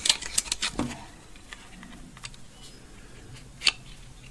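Light plastic clicks and taps as a TV remote control's circuit board and plastic case are handled: a quick run of clicks in the first second, then a single click near the end.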